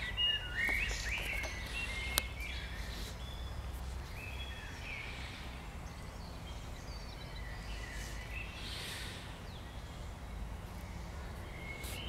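Wild songbirds singing, with short chirping and warbling phrases from several birds scattered throughout, over a steady low rumble. A sharp click about two seconds in.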